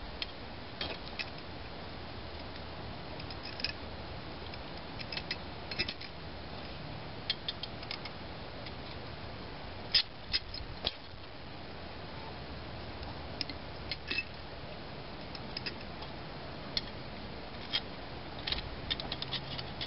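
Light metallic clicks and clinks, scattered through, as a U-bolt exhaust pipe clamp is handled and fitted back onto a pipe, over a faint steady hum.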